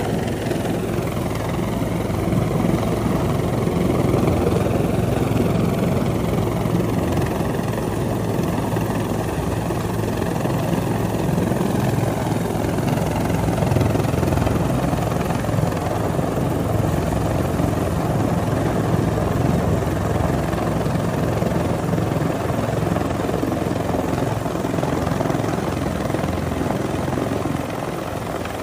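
Rescue helicopter hovering close overhead, its rotor and turbine running steadily, with a faint whine that glides in pitch in the first few seconds.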